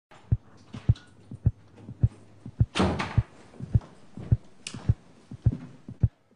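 Film soundtrack of regular low thumps, about three a second, in the manner of a heartbeat. Two short hissing rushes come through, about three seconds in and again near five seconds.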